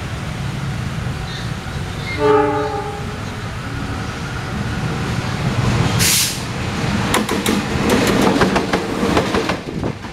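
An approaching locomotive-hauled train: a steady low rumble, with one short horn blast about two seconds in. A brief hiss comes about six seconds in, and rapid clattering from the wheels and rails follows as the train draws near.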